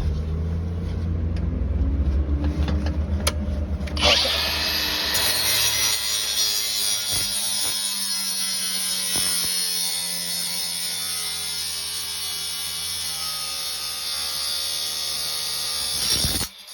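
Power saw cutting through the middle of a padlock's steel shackle. A motor runs for the first few seconds. About four seconds in, the blade bites into the metal with a loud, high screech that holds steady for roughly twelve seconds. The sound stops suddenly near the end.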